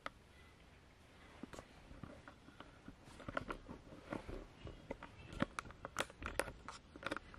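Faint, irregular clicks and knocks, growing busier from about three seconds in.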